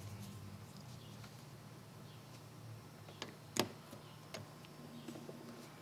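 Faint clicks of the primer base and small carburetor parts being handled and fitted onto a two-stroke trimmer carburetor: a few separate ticks in the second half, the loudest about three and a half seconds in, over a low steady hum.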